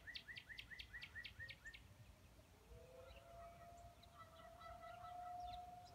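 A bird gives a rapid run of short chirps, about five a second, fading out after about two seconds. Then, about two and a half seconds in, a distant Federal Signal 2001 outdoor warning siren faintly winds up in pitch and settles into a steady tone as its test begins.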